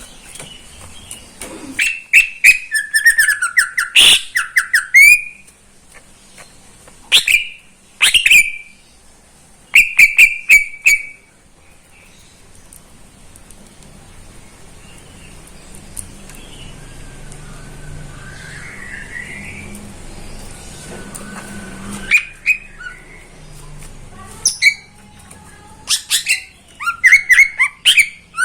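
Cucak ijo (green leafbird) singing in loud bursts of rapid sharp chips and whistled notes, with a quieter pause of several seconds in the middle before the song picks up again.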